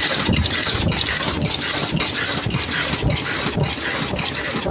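Automatic 3-ply mask earloop welding machine running: a steady hiss that pulses about twice a second with the machine's cycle.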